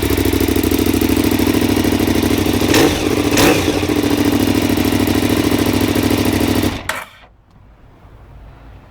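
KTM 990 Super Duke's 75° V-twin engine idling with a steady beat, given two quick throttle blips about three seconds in, then switched off about seven seconds in.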